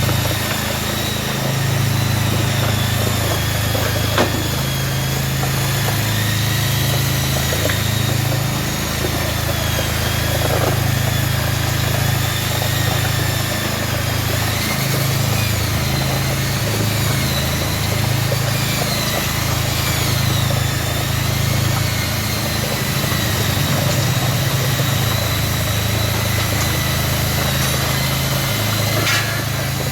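Machinery running steadily, with a low pulsing hum and a thin high whine that wavers up and down in pitch.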